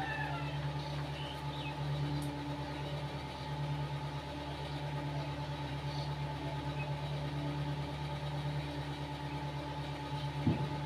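A steady low mechanical hum that holds one even pitch throughout, with a brief soft knock near the end.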